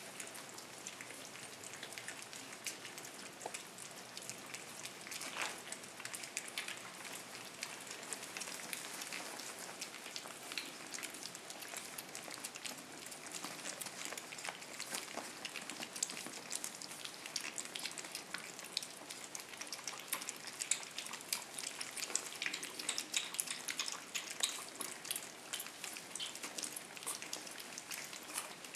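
Five-week-old shih-tzu puppies eating solid food together from their bowls at weaning: a dense, irregular crackle of small wet smacks and clicks from lapping and chewing, getting busier in the second half.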